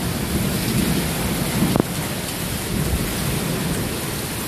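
Heavy tropical downpour: rain hissing steadily and loudly, with a deep rumble underneath and one sharp knock a little under two seconds in.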